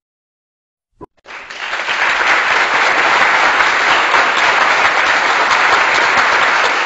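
Applause, many hands clapping. It starts just after a short click about a second in, swells within half a second and then runs steady and loud.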